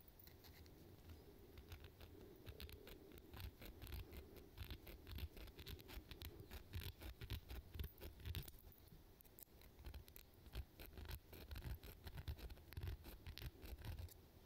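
Faint metal-on-metal scraping of a hook sharpener drawn in quick short strokes across a fishing lure's hook, with small clicks of the lure's metal parts and soft handling bumps. The strokes come in two busy runs with a short lull between them.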